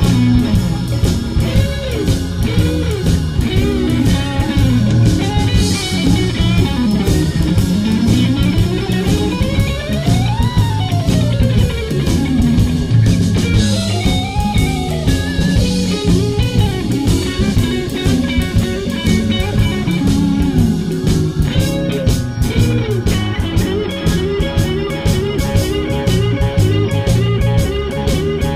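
Blues-style background music led by guitar with sliding, bending melody lines over bass and a steady drum beat.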